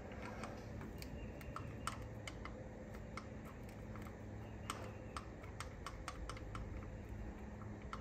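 Light, irregular metal clicks and taps from a magnet pickup tool working inside the oil pump relief-valve bore of a 6.0 Powerstroke, fishing for metal debris that jammed the valve. A faint steady low hum runs underneath.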